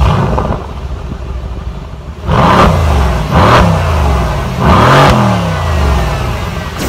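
Mercedes-AMG C63 S 4.0-litre twin-turbo V8 exhaust, loud at first and settling to idle, then revved three times about a second apart, the third rev held a little longer.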